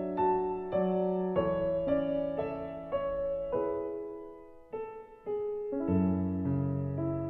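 Background piano music: single notes and chords struck about every half second, dipping quieter around the middle before a fuller, deeper chord comes in near the end.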